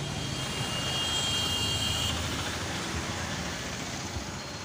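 Steady low engine drone under general market background noise, with a thin high whine that stops about two seconds in.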